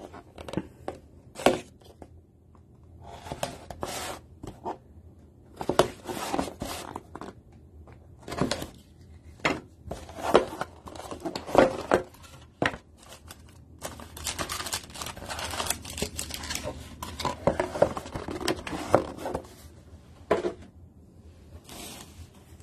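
A box cutter slitting the shrink wrap and seal of a cardboard trading-card box, then the lid and foil packs being handled: a run of short scraping cuts, tearing wrap, clicks and crinkly rustles, busiest in the second half.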